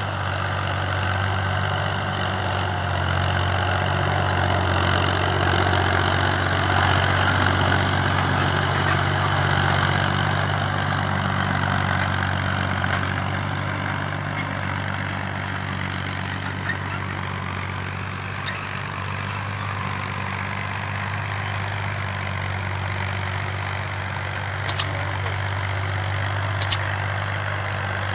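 Small farm tractor's engine running steadily, swelling a little for a few seconds and easing back. Two short sharp clicks sound near the end.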